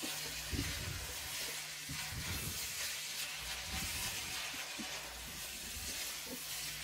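Minced meat frying in a hot pan over high heat, its water cooked off and browning in its own fat: a steady sizzle, with a few soft knocks scattered through.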